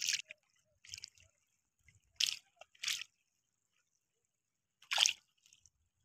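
Four short splashes and squelches in shallow, muddy water, with quiet gaps between them.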